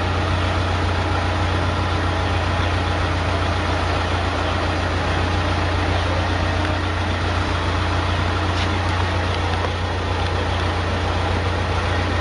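Wood-gas-fuelled diesel generator engine running steadily with a strong low hum.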